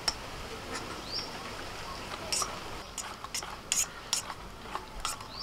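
Wire whisk clinking and scraping against a steel bowl as cake batter is beaten, in short irregular clicks about two a second from about two seconds in. A bird chirps briefly now and then.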